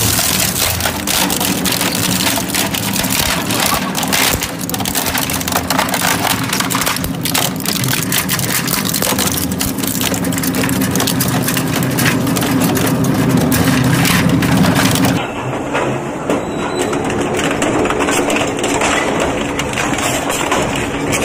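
Industrial shredder's toothed rotors chewing up electric fans and small appliances: continuous cracking and crunching of plastic and metal over the drive's steady hum. About fifteen seconds in it changes to a twin-shaft shredder's steel cutter discs grinding through sheet material.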